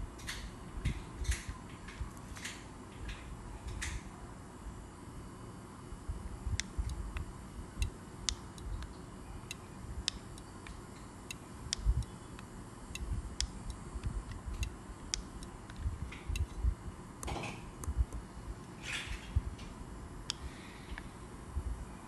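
Light, irregularly spaced clicks from a handheld gate remote being held and its buttons pressed, with low handling bumps and a couple of brief rustles.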